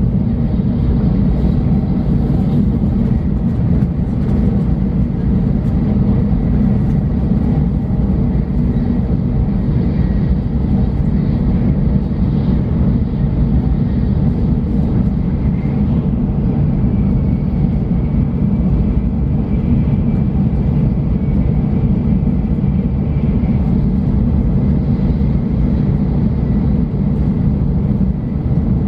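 Shinkansen bullet train running at high speed, heard from inside the passenger cabin: a steady, unbroken low rumble.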